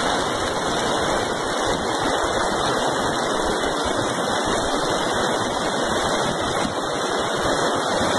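Muddy flash-flood torrent rushing, a steady, unbroken rush of water.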